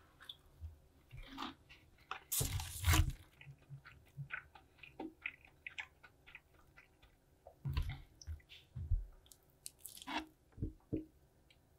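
Crispy Korean fried chicken crunching as it is bitten and chewed, with small crackles as pieces are handled and pulled apart. The loudest crunching comes about two and a half seconds in, with more around eight seconds and again near the end.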